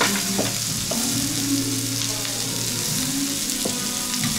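Marinated beef and bacon sizzling on a tabletop Korean barbecue grill, a steady hiss, with a few light clicks of metal tongs as the pieces are turned.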